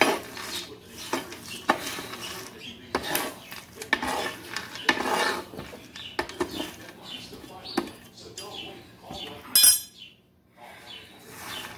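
A kitchen utensil scraping and clinking against a pan as toasted pumpkin seeds are scooped out to cool, in irregular strokes, with one sharp clatter near the end.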